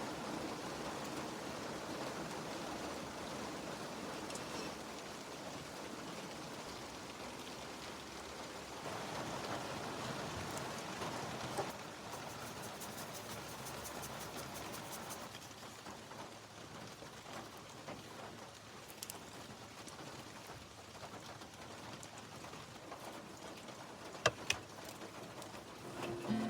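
Steady rain falling: a soft, even hiss, with a couple of light clicks partway through.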